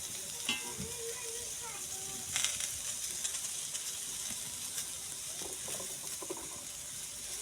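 Food sizzling in a cooking pan: a steady hiss, with a few light clicks.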